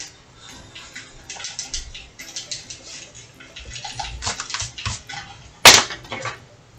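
Short scratchy strokes of a pen and pencil on sketchbook paper, with drawing tools being handled on the desk. A single sharp knock a little before the end is the loudest sound.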